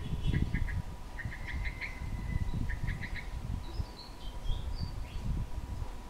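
Yellow-vented bulbul calling: three quick groups of short chirps in the first three seconds, then a few higher notes. A low rumble and a faint steady tone run underneath.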